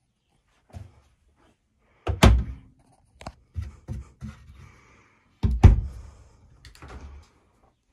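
Wooden kitchen cabinet doors in an RV being pushed shut, landing with two loud thuds about three seconds apart, with lighter knocks between and after.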